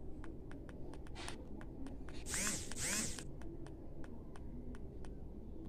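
Faint handling sounds of fingers on a Jio Phone's keypad: a quick run of light clicks, with two short scratchy rubs a little after two seconds in.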